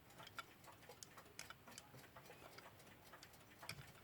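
Faint, irregular light clicks and taps of small metal clock-movement parts being handled and worked.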